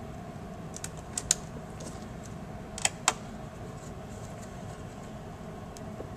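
A few light metallic clicks and taps, some in quick pairs, from small screws and a screwdriver being handled while fastening a replacement LCD panel into a laptop's lid, over a faint steady hum.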